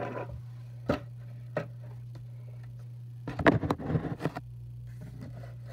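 Light clicks, then a cluster of knocks and clatter about three and a half seconds in as a glass-top digital kitchen scale is set down on a table and switched on, over a steady low hum.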